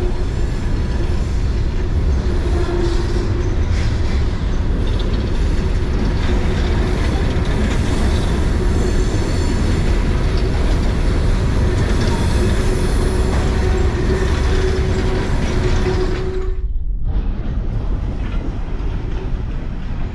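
A long CSX freight train of empty coal cars rolling past: a steady rumble and clatter of wheels on rail with a steady tone running over it. About 17 seconds in the sound breaks off abruptly, then resumes a little quieter.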